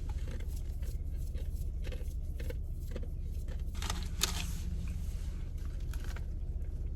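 Someone crunching and chewing dry roasted edamame: a string of short, sharp crunches with a louder cluster about four seconds in, over a steady low hum.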